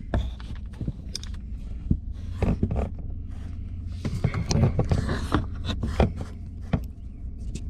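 Handling noise: scattered scrapes, rustles and clicks over a steady low hum.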